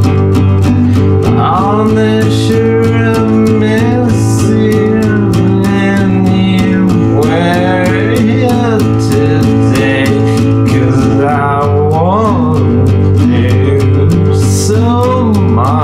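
Lo-fi country-style song, mostly instrumental: guitar playing a fast, even rhythm under a melody line that glides up and down in pitch.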